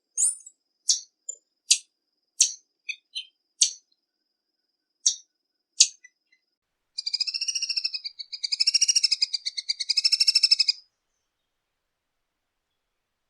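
Tanager calling: a series of short, sharp, high chip notes for about six seconds, then a fast trill of about four seconds that wavers slightly in pitch.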